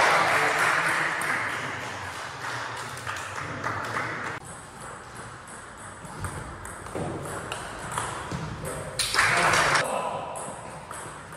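Table tennis ball clicking off rubber-faced paddles and the table in a rally, an irregular run of sharp ticks echoing in a sports hall, with a loud burst of noise at the start and again about nine seconds in.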